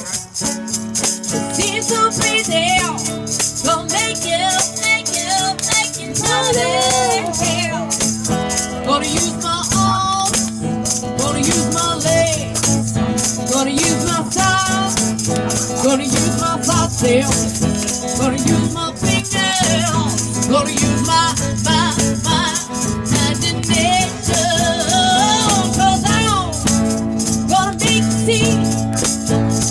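Live acoustic band playing a pop-rock song, with a woman singing into a microphone.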